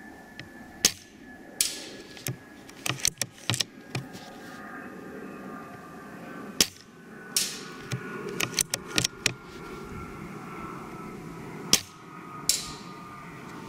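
Well Warrior L96 spring-powered airsoft sniper rifle fired at a paper target 50 m away without a silencer, heard from the target end. There are three sharp cracks about five seconds apart, each followed by a short hiss, among many lighter clicks and taps.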